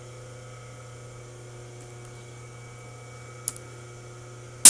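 Steady low machine hum from the Acroloc M10 CNC lathe. Near the end comes a single sharp, loud clunk, the turret lock re-engaging after the turret indexes to a new tool.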